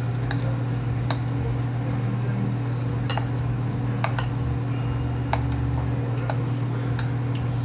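Kitchen utensils clinking and tapping against dishes, about six sharp separate clicks roughly a second apart, over a steady low hum.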